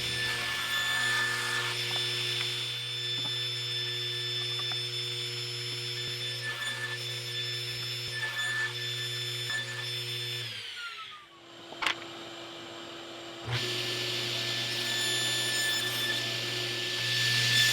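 A power tool's electric motor running steadily with a constant hum, switched off about ten seconds in and winding down in pitch. A sharp click follows, and about three seconds later the motor starts up again and runs steadily.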